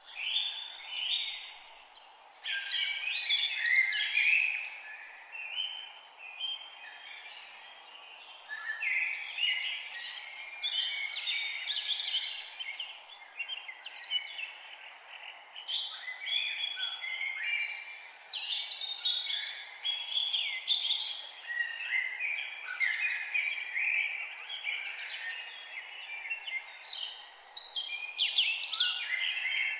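Several songbirds singing and calling at once, a dense run of overlapping chirps and trills, over a faint steady hiss.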